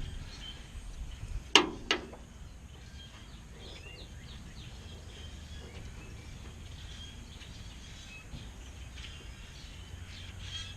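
Outdoor background noise with scattered bird chirps, broken by two sharp knocks close together about a second and a half in.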